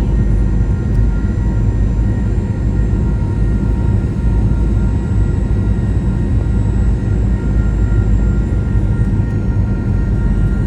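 Cabin noise inside a Boeing 737-900 on its landing: the CFM56 engines and airflow make a steady, loud low rumble, with several steady whining tones over it.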